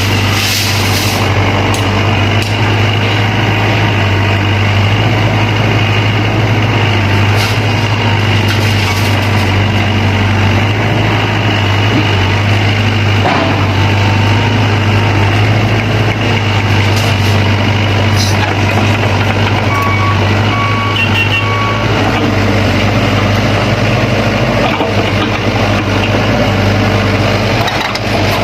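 Diesel engines of an excavator and dump truck running steadily under work, with a few sharp knocks scattered through. About twenty seconds in, a reversing alarm beeps briefly several times.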